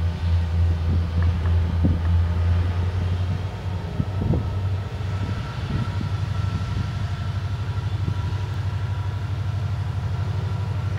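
Union Pacific diesel freight locomotives running, a loud steady low rumble, with a few short clanks from the train on the rails about two and four seconds in. A faint steady whine joins partway through.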